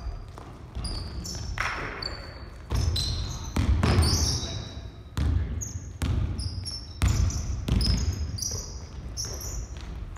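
Basketball bouncing on a wooden gym floor, with sneakers squeaking in short high chirps as players cut and stop.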